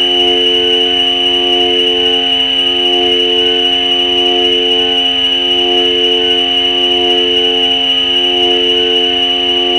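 Ambient drone music from a Korg Volca Modular semi-modular synthesizer, using FM tones: a steady high tone held over a cluster of lower sustained tones that swell and fade every two to three seconds.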